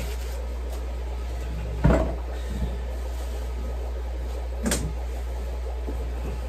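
Two dull knocks of things being handled and set down, one about two seconds in and another near five seconds, over a steady low hum.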